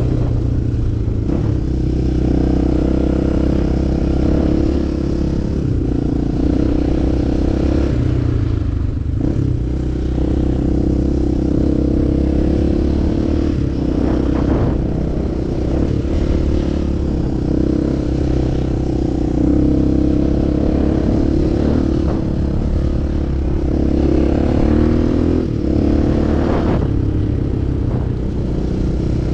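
Enduro motorcycle engine running steadily as it is ridden off-road, the revs rising and falling with the throttle. A few brief knocks and clatters are heard along the way.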